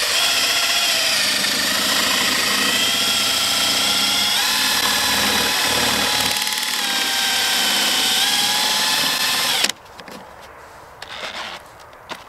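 Cordless drill running steadily, a whining motor tone as its step drill bit cuts a hole through a plastic bucket lid. The pitch steps up about halfway through, and the drill stops abruptly about ten seconds in.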